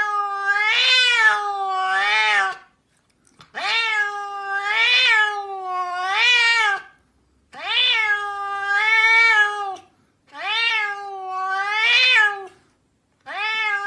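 A cat giving long, drawn-out meows one after another, each wavering up and down in pitch several times, with short pauses between calls.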